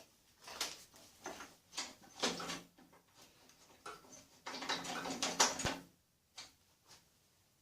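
Scattered metallic clicks and scrapes of a tool on screws and steel parts as the back rail's long-headed screws are worked loose, with a sharp knock a little over halfway through.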